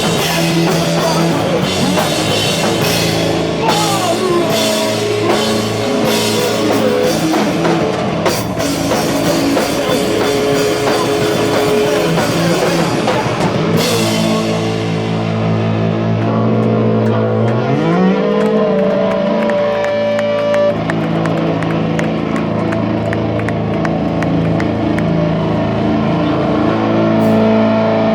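Live rock band playing loud, with drum kit and crashing cymbals under distorted electric guitar. About halfway through the cymbals drop out, leaving held guitar notes ringing, one of them sliding up in pitch.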